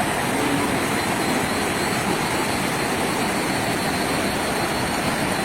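A steady, even rushing noise, constant in level throughout.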